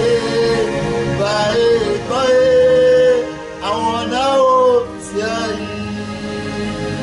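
A man singing a slow gospel hymn, holding long notes with short breaks between phrases, over a steady sustained accompaniment.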